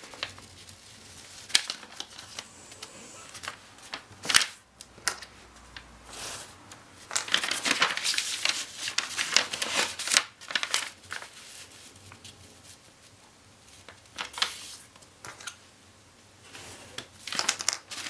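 A sheet of origami paper being folded and creased by hand: irregular rustling and crinkling with sharp crackles as folds are flattened, louder in bursts of handling separated by quieter stretches.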